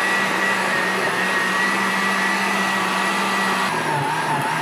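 Countertop blender running steadily, blending a wet mixture of fresh thyme, hot peppers and herbs. About three and a half seconds in, its pitch drops slightly and wavers.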